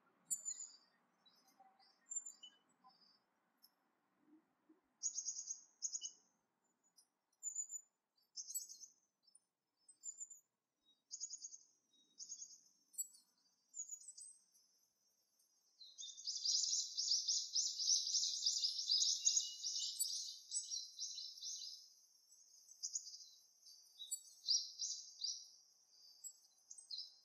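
Small songbirds calling in short, high chirps every second or so, then a dense run of rapid twittering for about six seconds past the middle, then short chirps again.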